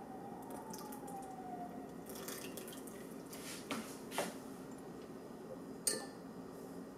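Liquid ingredients poured and dripping into a stainless steel mixing bowl, with a few small splashes and ticks and a sharp click about six seconds in. A faint wavering tone fades out about two seconds in.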